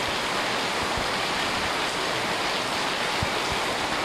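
Heavy downpour falling on a flooded paved alley: a steady, even hiss of rain.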